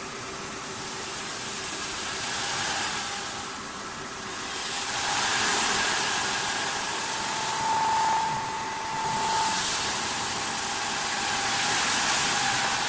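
CNC wood turning lathe running: a steady motor whine under a hissing cutting noise that swells and fades about five times as the tool works the spinning wood.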